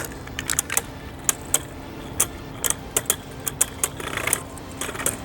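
Beyblade Burst spinning tops battling in a stadium, with irregular sharp clacks as they strike each other and the stadium walls.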